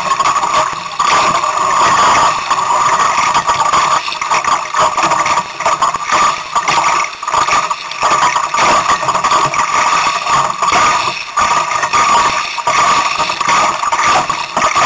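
Strong wind buffeting the camera microphone, a continuous rush that flutters rapidly and dips now and then with the gusts.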